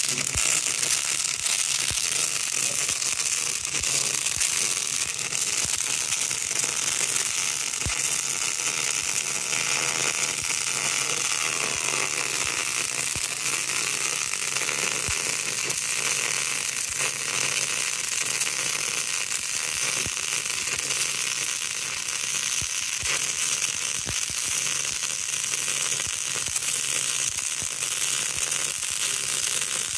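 MIG welding arc crackling and sizzling steadily as a continuous bead is laid on steel, with a steady electrical hum beneath.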